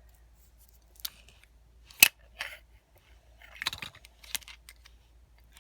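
Small plastic toy packaging being handled and opened: a few short sharp clicks and rustles, the loudest about two seconds in.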